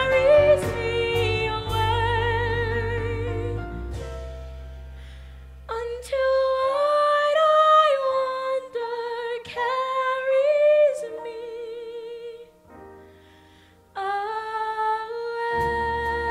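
A young woman singing long held notes with vibrato through a headset microphone, over a low instrumental accompaniment. The music drops almost to silence for a moment about two thirds of the way through, then resumes.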